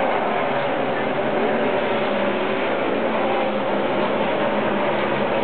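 Steady din of NASCAR stock-car engines around pit road, a dense unbroken noise with engine notes drifting slightly in pitch.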